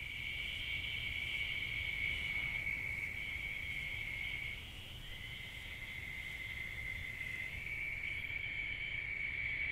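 Night insects, crickets, trilling in a steady high-pitched chorus, which breaks off briefly near the middle and comes back a little lower in pitch.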